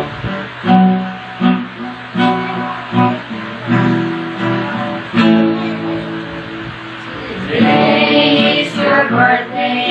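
Acoustic guitar strummed in chords, then a group of mixed voices, women, men and children, starts singing along with it about three-quarters of the way in.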